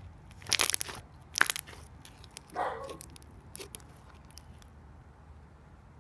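Green fluffy slime squeezed and pressed by hand, giving two loud crackling pops about half a second and a second and a half in, then a few small clicks. A dog barks once about midway.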